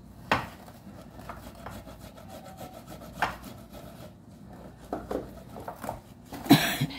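Items being handled on a kitchen counter: a sharp knock just after the start, a few lighter knocks and rubbing sounds, and a louder brief scrape near the end.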